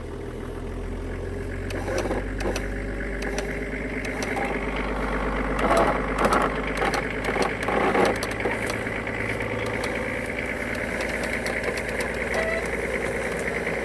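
Vehicle engine held at about 1,000 revs while pulling a gorse bush out by the roots, its steady hum building slightly, with scattered cracks and knocks as the load comes on.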